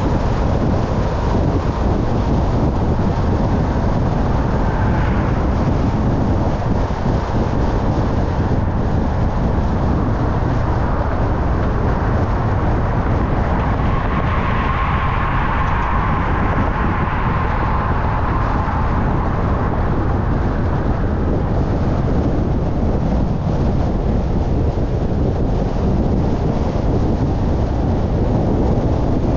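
Steady road and wind noise from a moving car, heavy in low rumble. About halfway through a louder rush of tyre noise swells and fades as another car passes alongside.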